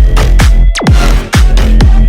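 Electronic dance music with a steady, heavy beat.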